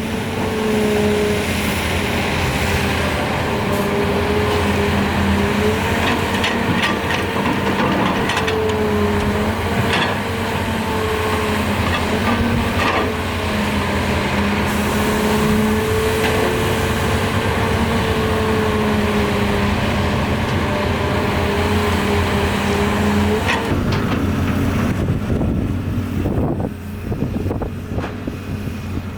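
Doosan DX300LC-3 excavator's diesel engine and hydraulics working under load, a steady drone with a whine that wavers in pitch as the arm moves, and a few sharp metallic clanks. Near the end the engine note drops away and the sound quietens.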